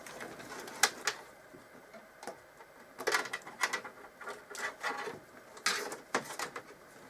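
Irregular light clicks, taps and rustles of LED cables being handled and routed through a computer case.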